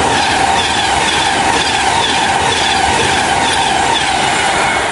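Passenger railway coaches rolling past at speed close by: a loud, steady rumble of wheels on rail with a regular clickety-clack from the bogies passing over rail joints, about twice a second.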